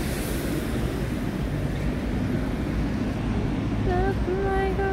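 City street ambience: a steady low rumble of traffic with wind buffeting the microphone. About four seconds in, a voice comes in with a few held, level tones.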